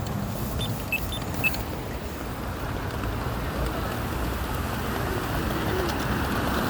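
Pedestrian crosswalk push button pressed several times in quick succession in the first second and a half, each press giving a short high beep. Steady street traffic noise runs underneath and grows a little louder.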